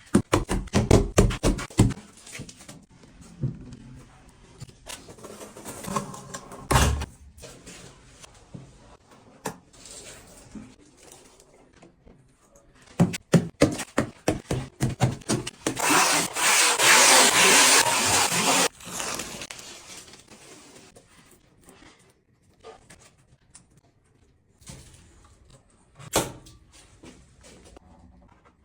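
Tile-laying work: several runs of quick knocks and tapping, and about halfway through a harsh scraping noise lasting about three seconds.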